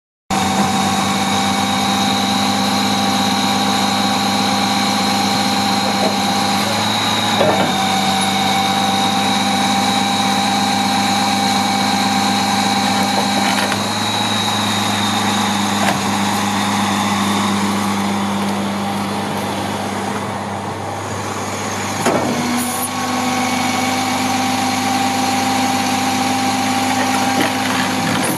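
2003 International 4400 bucket truck's diesel engine running with its hydraulics working as the outriggers are lowered onto their pads: a steady engine note with a high whine over it, the pitch shifting and a short knock at a few points as the controls are moved.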